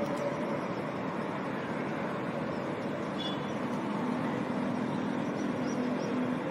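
Steady outdoor background noise, an even hiss, with a faint low hum coming in about four seconds in and a few faint high chirps.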